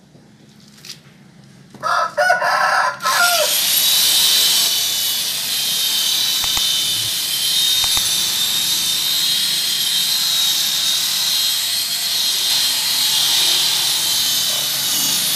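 Electric rotary car polisher spins up about three seconds in and runs on with a steady high whine, its pad buffing compound into dull car paint. Just before it starts, a rooster crows once.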